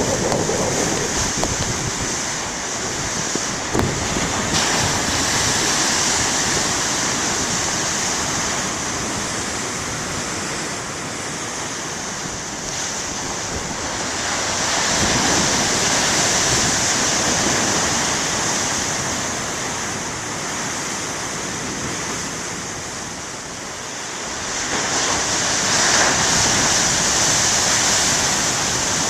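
Big ocean waves breaking and washing up the beach, the surf swelling louder three times, about ten seconds apart.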